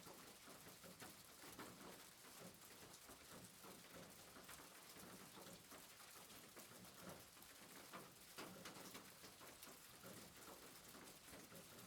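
Rain pattering on a roof: a faint, even hiss made of many small drop taps.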